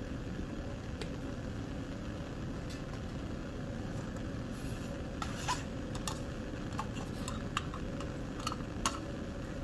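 Steady low rushing background with a faint hum. Light plastic clicks and taps come mostly in the second half, as a plastic petri dish and its lid are picked up and handled.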